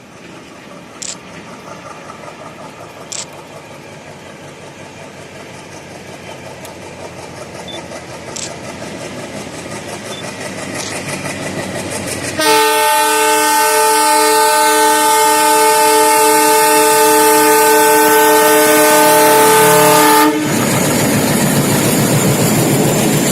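WDM-3D diesel locomotive's ALCO 16-cylinder engine chugging at full notch as it climbs a gradient, growing steadily louder as it approaches. About twelve seconds in it sounds one long multi-tone horn blast lasting about eight seconds, and after it the engine is loud and close.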